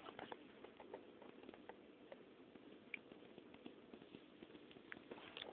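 Near silence: a faint low hiss with scattered small clicks and ticks.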